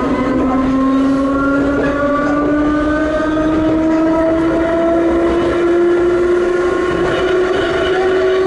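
Traction motors and gears of Ohmi Railway 220 series car Moha 226, a nose-suspension-drive electric car, running loud under power. Their whine rises steadily in pitch as the train accelerates.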